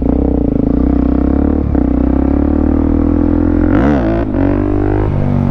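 Small dirt bike engine running steadily close by, a loud, even drone whose pitch drifts slightly.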